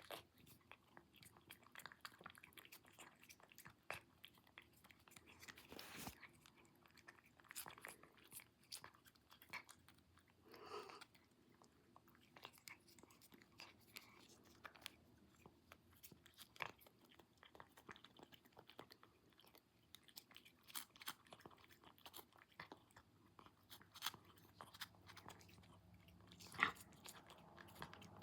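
A cat crunching and chewing Temptations dry cat treats: quick, irregular crunches, several a second.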